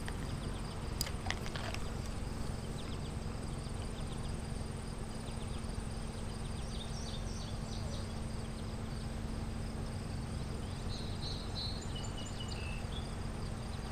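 Outdoor ambience: steady high insect trilling over a low rumble, with a few short bird chirps near the end.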